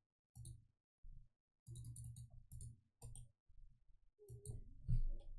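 Computer mouse clicking several times at uneven intervals, short sharp ticks over soft low thuds.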